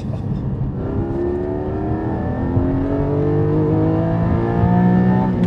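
Porsche Cayman GT4's naturally aspirated 4.0-litre flat-six accelerating hard: from about a second in its note climbs steadily and grows louder in one gear, over a low rumble.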